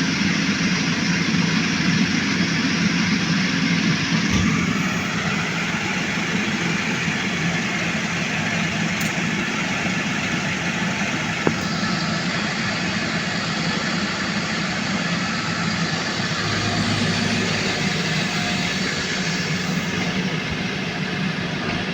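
Small engine of a motorized palm-fruit carrier running steadily, easing slightly about four seconds in.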